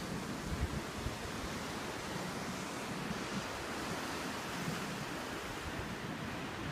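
Ocean surf washing and breaking against coastal rocks, a steady wash, with wind rumbling on the microphone in the first second.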